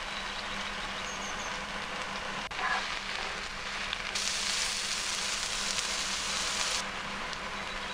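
Sliced soaked shiitake mushrooms and ginger strips sizzling in hot oil in a frying pan, a steady hiss that grows brighter and louder for a few seconds past the middle. A brief knock about two and a half seconds in.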